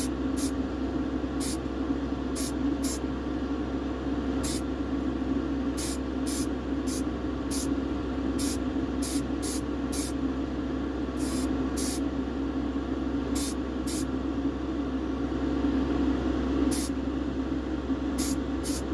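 Aerosol can of grey primer sprayed in many short bursts, each a brief hiss, some in quick pairs, a light coat that avoids flooding the part. A steady hum runs beneath.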